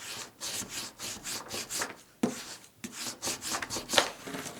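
Hands rubbing and pressing down on glued cardstock in quick repeated strokes, setting the glue, with a couple of light knocks on the work surface.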